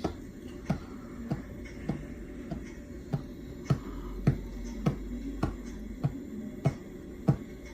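Ceiling fan running on low speed over a steady low hum, with a sharp, regular click a little under twice a second.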